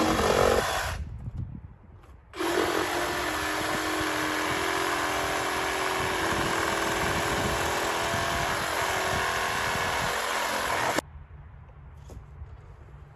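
Chainsaw running at high revs. It drops back about a second in, opens up again after a second or so, runs steadily for about eight seconds, then falls back to a low idle near the end.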